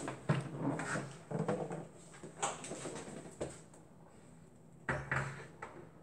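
Scattered light knocks and clatter of a microwave oven being handled and set in place, with a quieter pause about four seconds in.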